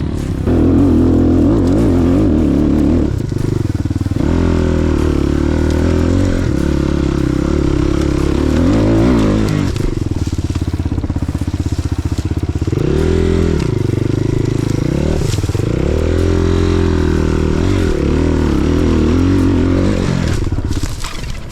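Single-cylinder enduro motorcycle engine being ridden off-road, its pitch rising and falling with the throttle, dropping sharply and climbing back a few times in the middle.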